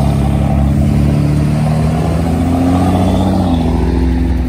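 Pickup truck engine and exhaust under hard acceleration, a loud pull with the pitch climbing steadily, then stepping down about three and a half seconds in with a gear change.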